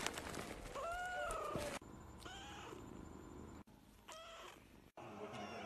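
Kittens mewing: one clear mew that rises and falls about a second in, then several shorter, fainter mews.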